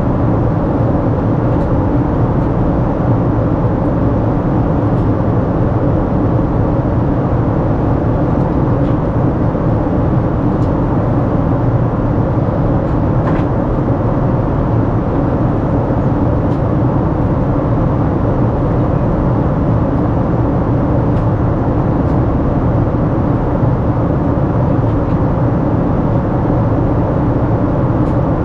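Steady in-flight cabin noise of a Boeing 787-9 airliner, heard from a window seat: a constant rush of engine and airflow noise over a low hum, holding level throughout.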